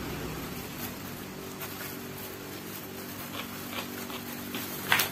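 A steady low mechanical hum, with light clicks and crackles from a plastic glove and a cardboard food box being handled while eating by hand; a sharper crackle near the end is the loudest sound.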